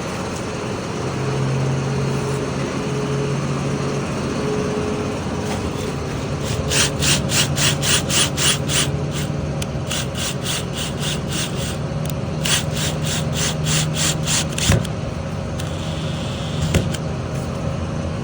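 Quick back-and-forth scraping strokes by a hand tool, about four or five a second, in two runs of a few seconds each, over a steady low mechanical hum. A couple of sharp knocks come near the end.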